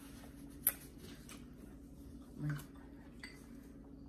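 A fork clinks sharply against a plate once, just under a second in, with a fainter clink a little after three seconds, over a steady low hum. A brief low hum sounds about two and a half seconds in.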